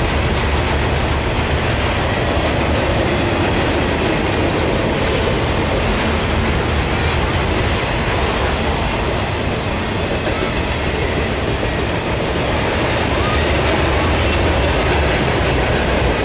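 Norfolk Southern intermodal train of trailer-carrying flatcars passing close by at speed: the steady noise of steel wheels rolling over the rails.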